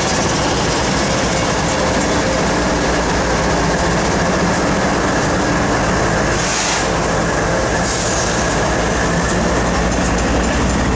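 Loaded freight train rolling slowly past, a steady loud rumble of diesel locomotives and wheels on the rails, with a brief high hiss or squeal about six and a half seconds in.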